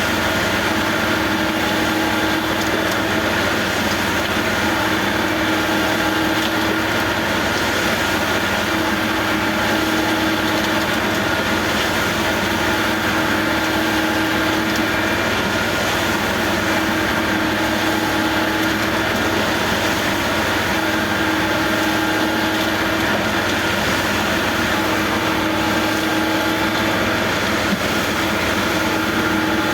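Engine of construction machinery running steadily at constant speed, with an even hum and no change in pitch.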